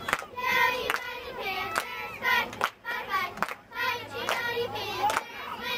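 Young voices chanting together, punctuated by repeated hand claps.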